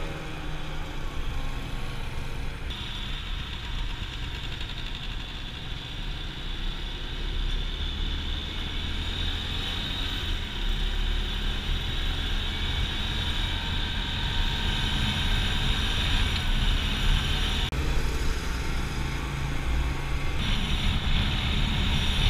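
Small motorcycle riding along a road, heard from a camera mounted on it: a steady low engine drone mixed with wind and road noise, growing louder as the bike picks up speed.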